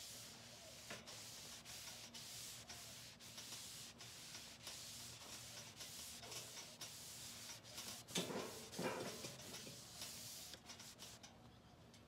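Shop towel rubbing over the painted metal sides and top of a mini refrigerator, a faint steady scuffing hiss, wiping off excess hemp oil that still feels sticky; the rubbing stops shortly before the end.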